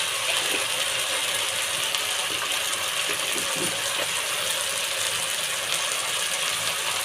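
Masala paste with turmeric sizzling in hot oil in a pan, with a spatula scraping and stirring it now and then.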